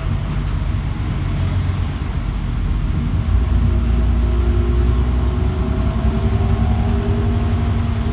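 Temsa MD9 LE city bus heard from inside the passenger cabin while driving: a steady low engine and road rumble, with a faint whine that rises gently in pitch from about three seconds in.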